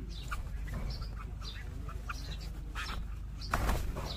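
Small birds chirping in short, scattered calls over a steady low rumble, with a brief louder burst of noise about three and a half seconds in.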